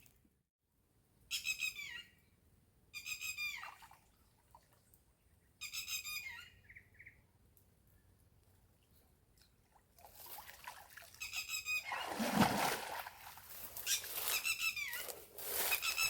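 Repeated short, high squeaky animal calls that fall in pitch, three separate ones in the first six seconds. From about ten seconds in they come several in quick succession over a louder rustling noise.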